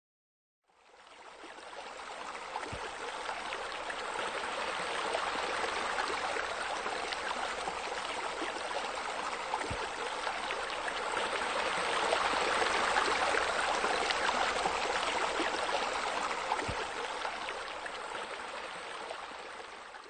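Steady rush and splash of water from a rock waterfall spilling into a swimming pool, fading in about a second in and fading out at the end.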